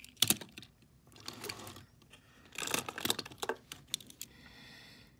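Small die-cast metal toy trucks clicking and clattering against one another and the tabletop as they are set down and picked up, with a soft rustle of handling between. Sharp clicks come just after the start and a quick run of clicks near the middle.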